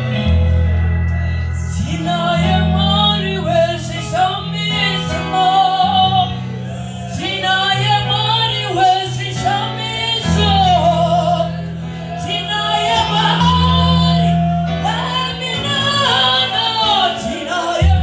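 Gospel song: voices singing a melody over instrumental backing with held bass notes that change every second or two.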